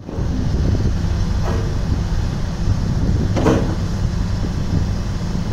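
2008 Cat 321D LCR excavator's four-cylinder diesel engine running steadily while its hydraulics move the boom and bucket. Two brief, sharper sounds stand out, about a second and a half in and, louder, about three and a half seconds in.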